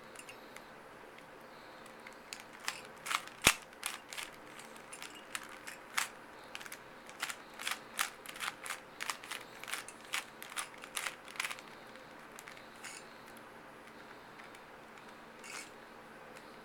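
Rubik's Cube layers being twisted by hand: a quick run of sharp clicks for several seconds, then only a few scattered clicks.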